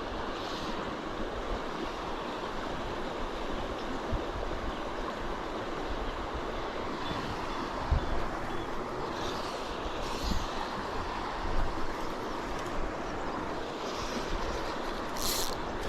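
Steady rush of flowing river water, with wind buffeting the microphone in irregular low rumbles and a few brief hissing bursts near the middle and the end.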